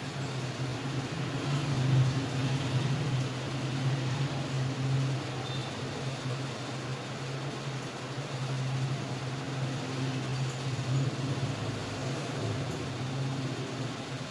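Steady low machine hum over an even hiss, like a running fan.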